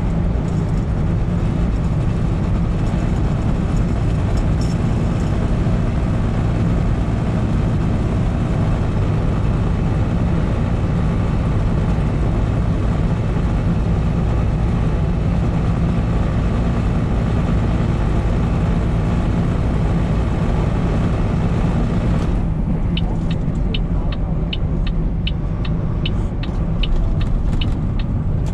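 Semi-truck engine and road noise heard from inside the cab while driving at highway speed, a steady low drone. Near the end a run of evenly spaced high ticks, about three a second, sounds over the drone.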